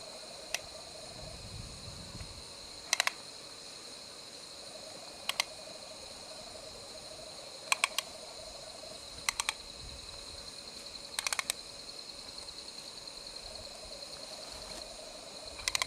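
Steady high drone of insects, with sharp clicks in small groups of two to four every couple of seconds.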